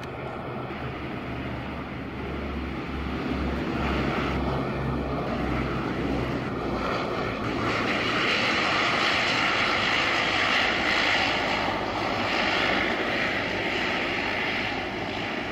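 ATR-42 twin-turboprop rolling along the runway, its engines and propellers growing louder as it draws near and passes. A low propeller drone with a pulsing hum comes first, then a loud hiss that is strongest in the second half.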